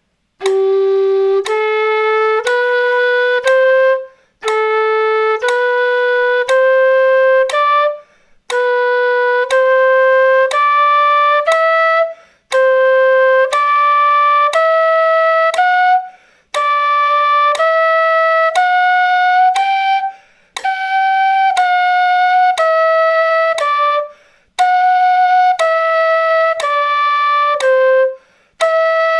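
Quena, an Andean notched end-blown flute, playing a slow scale exercise with one sustained note per metronome click at 60 BPM. The notes come in groups of four with a short breath between groups: the groups rise step by step, then later fall. Each note is about a second long.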